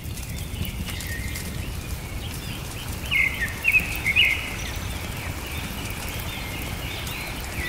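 Nature ambience recording: many small birds chirping and calling, loudest about three to four seconds in, over a steady low rushing background.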